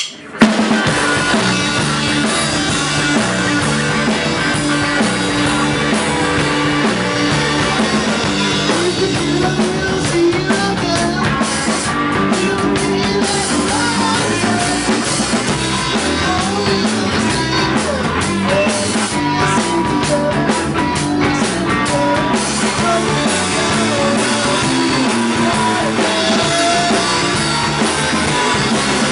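Rock music with a drum kit and guitar, kicking in abruptly about half a second in and staying loud and even.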